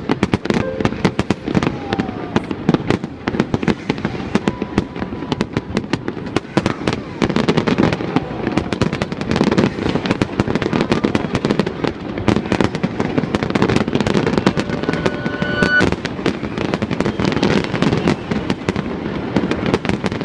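Fireworks display: a dense, continuous barrage of shells bursting, with rapid crackling and popping.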